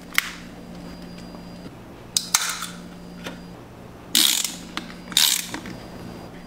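Pipe wrench twisting the screw cap off a plastic soda bottle: a sharp click, then clicking and rasping bursts about two, four and five seconds in as the cap turns.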